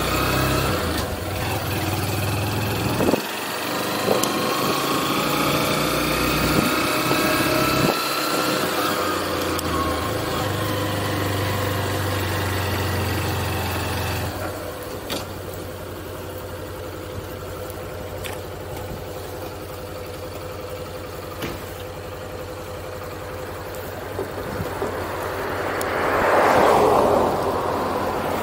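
Small motorcycle engine pulling away with rising revs, with two gear changes in the first few seconds. From about halfway it idles steadily and more quietly while the bike waits at a junction. Near the end a passing car swells loudly and fades.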